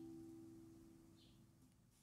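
Near silence: the ringing of a plucked guitar chord in background music fades away.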